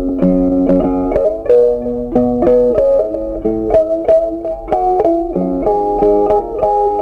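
Background music: a plucked guitar playing a melody, one note after another.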